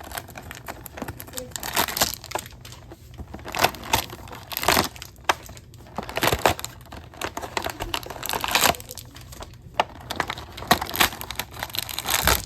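Plastic blind-bag toy packaging crinkling in irregular bursts as it is handled.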